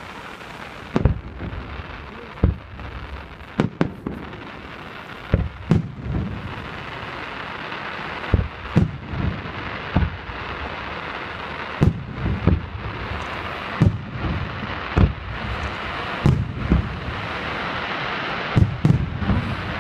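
Fireworks display: sharp shell-burst bangs about once a second, sometimes two in quick succession, over a dense crackling that builds up through the second half.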